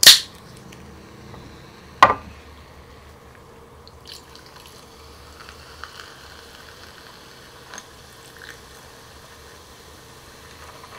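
A soft drink can's pull tab cracked open with a sharp hiss, followed by another sharp click about two seconds in. From about four seconds in, the soda is poured over ice cubes into a glass, fizzing faintly with small crackles.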